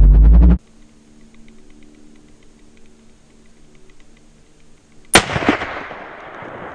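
Loud background music cuts off about half a second in. After a quiet stretch, a single hunting rifle shot goes off close by about five seconds in: one sharp crack followed by a long decaying echo.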